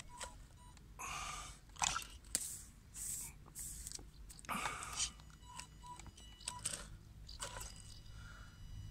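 WLtoys 12428 RC crawler's tyres crunching and scraping over loose gravel and dirt as it climbs, in irregular bursts.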